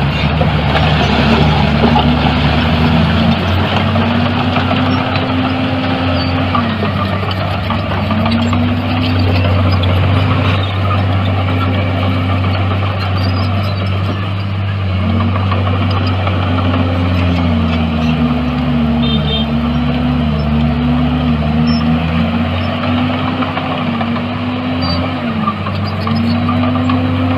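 Heavy diesel earthmoving machine engine working under load, its pitch rising and falling repeatedly as the revs change, over a steady low hum.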